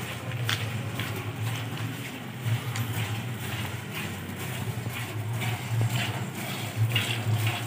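Water buffalo being milked by hand: squirts of milk hitting a plastic bucket, over a low steady rumble.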